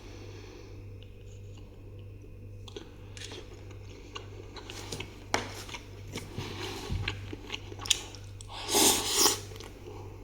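Crunching and chewing of crispy fried chicken, close to the microphone: scattered crunches, with a louder crunchy burst about nine seconds in.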